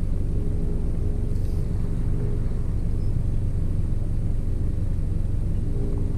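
Boat's outboard motor running steadily under way, a low droning hum with rumble.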